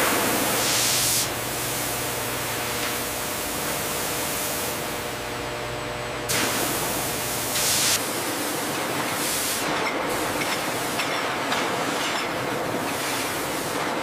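Rinse-station spray nozzles hissing and water rushing over a conveyor of glass formers, with a steady machine hum underneath. The hiss swells briefly near the start and again about two-thirds of the way through.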